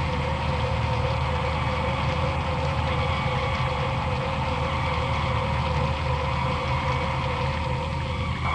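Steady science-fiction spacecraft hum: a low machine drone with a held higher electronic tone above it, unbroken throughout.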